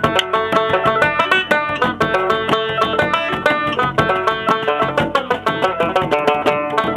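A banjo picking a fast traditional tune in a dense run of plucked notes, with a hand-struck frame drum beating along.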